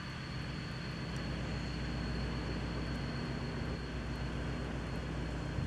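TEP60 passenger diesel locomotive's 16-cylinder two-stroke diesel engine running steadily as it hauls its train, with the rumble of the coaches on the track. A thin, steady high whine runs under it.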